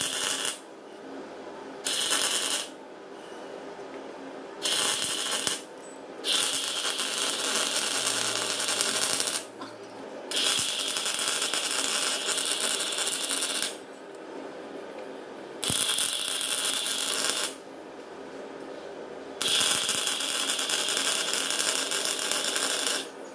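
MIG welder arc crackling and hissing as a shaft is welded to a steel hub: three short tacks of under a second each, then four longer runs of two to four seconds each, with a steady low hum in the pauses between them.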